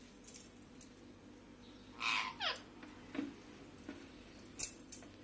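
Indian ringneck parakeet giving one short call about two seconds in, ending in a quick falling note. A few light clicks and taps follow, the sharpest near the end.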